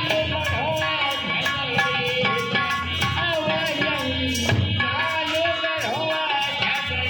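Devotional bhajan music: a steady hand-drum beat under sustained instrumental tones, with a singing voice carrying the melody.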